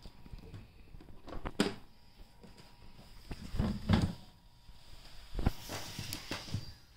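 Handling noises from an HP 410 ink tank printer being unpacked: a sharp knock, then a few heavier clunks as the ink tank cover is lifted open, and a stretch of plastic wrap rustling near the end.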